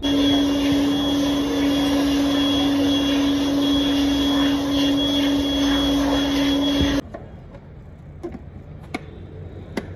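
Compressed-air blow gun blowing dust out of a car's pleated panel air filter: a loud steady hiss with one steady tone in it, starting abruptly and cutting off suddenly about seven seconds in.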